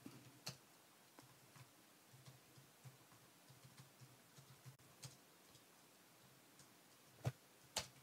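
Near silence: room tone with a few faint scattered clicks, the two sharpest near the end.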